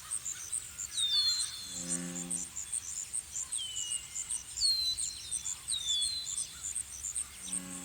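Insects chirping in a rapid, even, high-pitched rhythm. About four bird calls cut across it, each a whistle sliding down in pitch. A short low hum comes about two seconds in.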